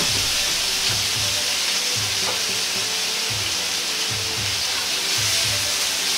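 Sliced pork belly sizzling in hot oil in a Chinese wok: a steady frying hiss, with the meat being stirred around the pan near the end.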